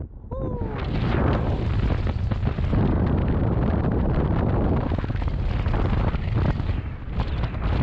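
Strong wind buffeting the camera microphone, loud and continuous with a heavy low rumble. A brief falling tone sounds about half a second in.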